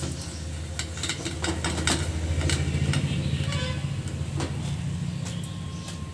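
Onion fritters (ulli vadai) frying in hot oil, with scattered crackles and clicks as a wire spider strainer lifts them out of the aluminium pan, over a steady low hum.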